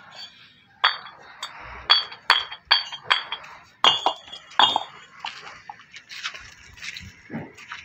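Fired clay bricks knocking against each other as they are picked up and handled, giving a string of sharp clinks with a short ring, about eight in the first five seconds, then fewer and fainter.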